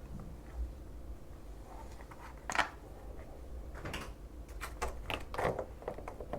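A mechanical keyboard being handled, giving a few separate clicks and knocks with the loudest about two and a half seconds in, over a low steady hum.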